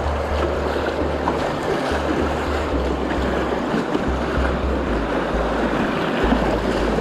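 Rushing whitewater of a river rapid, with water splashing against a canoe's hull as it runs through. Uneven low rumbling from wind on the microphone underneath.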